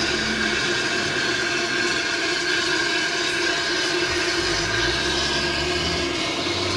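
Liquid nitrogen filling line running: a steady loud hiss of cold nitrogen gas and vapour venting around the frosted transfer hose and dewar, with constant machine-like tones through it. A low hum comes in about four and a half seconds in.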